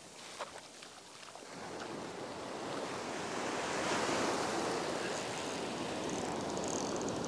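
Surf washing up the beach, a low rush that builds over the first couple of seconds and then holds steady.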